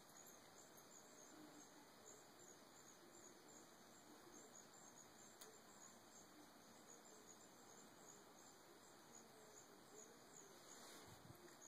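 Near silence, with faint, rapid high-pitched chirping of insects throughout and a faint click about halfway through.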